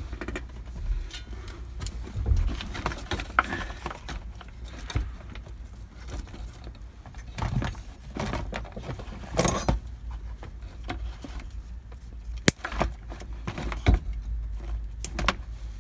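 Hand tools and small metal parts clinking and clattering as an old blower motor is worked loose and removed, with two sharp clicks near the end and a low steady hum underneath.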